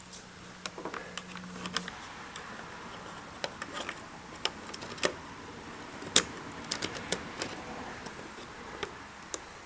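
Scattered light clicks and taps of small parts and hand tools being handled while an RC truck's suspension is put back together, with sharper clicks about five and six seconds in. A faint low hum sounds for the first two seconds.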